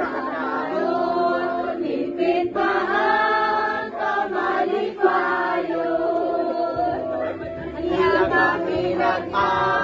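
A group of women singing a birthday serenade together, holding long notes in chorus.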